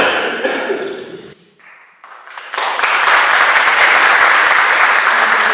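Audience applauding: a brief lull after a few words, then a dense burst of clapping from a crowd that starts about two and a half seconds in and stays loud.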